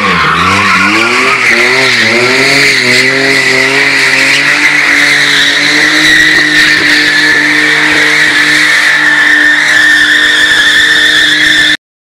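Car spinning donuts: the engine's revs rise and fall for the first couple of seconds, then hold high and steady while the rear tyres squeal continuously on the concrete. The sound cuts off abruptly near the end.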